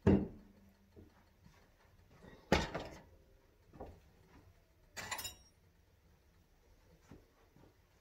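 Kitchen clatter: three sharp knocks about two and a half seconds apart. The first is a glass pot lid set down on a pot. The last has a brief metallic ring. Fainter small knocks come between them.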